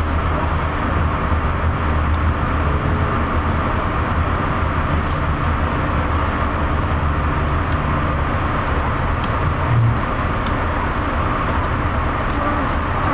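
Steady running noise heard inside an Amtrak Hiawatha passenger coach as the train rolls along: an even rumble with a strong low hum, and a brief low bump about ten seconds in.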